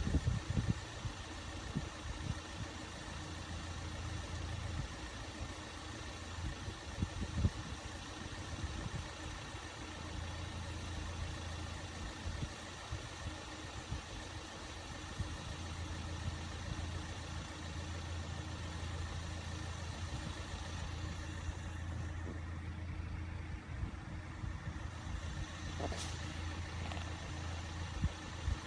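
A car engine idling steadily in a low, even hum, with one sharp click near the end.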